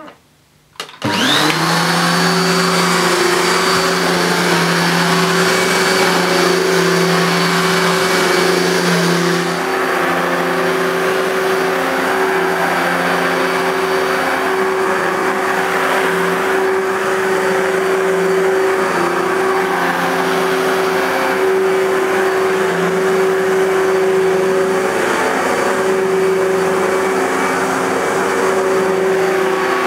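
Electrolux Z1435 Contour Chic 1000 W upright vacuum cleaner switched on about a second in. Its motor whines up to speed almost at once, then runs steadily with a high whine over a lower hum. The lowest note of the hum drops away about nine seconds in.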